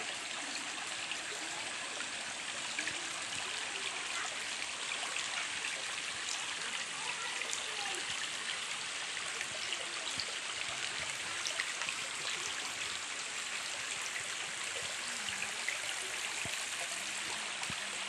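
Shallow, rocky stream flowing: a steady rush of water over stones.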